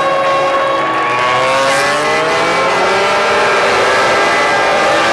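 Several MotoGP racing motorcycle engines running at high revs, their overlapping notes rising and falling as the bikes pass.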